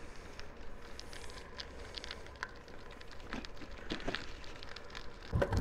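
Bicycle in motion, heard from the rider: scattered light clicks and crackles over a faint steady rumble, with a louder knock near the end.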